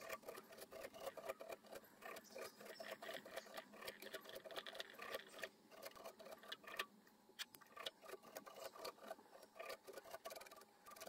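Faint, quick, irregular scratching of a Velcro strip on a stick brushing out the husky-fur dubbing of a nymph body held in a fly-tying vise.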